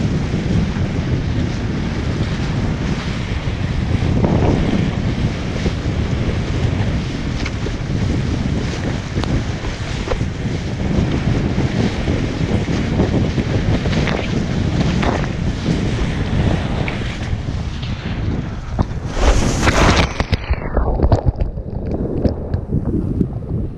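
Wind buffeting an action camera's microphone over the hiss and rush of water under a kiteboard planing across shallow sea. Near the end a loud splash hits, and the sound turns muffled and splashy as the rider goes down and the camera is swamped by water.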